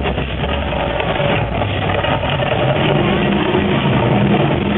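Mirage volcano attraction erupting: a loud, continuous rumble of its gas-fired flame effects mixed with the show's loudspeaker soundtrack of deep, steady tones.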